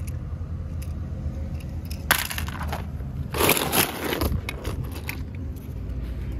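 Die-cast toy cars clattering and jostling against each other in a plastic basket, in two loud bursts about two and three and a half seconds in, over a steady low rumble.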